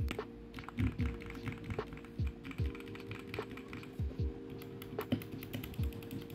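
Typing on a mechanical keyboard fitted with pre-lubed Gateron G Pro Black 3.0 linear switches: irregular keystrokes giving soft clacks and low thuds as keys bottom out. Background music plays underneath.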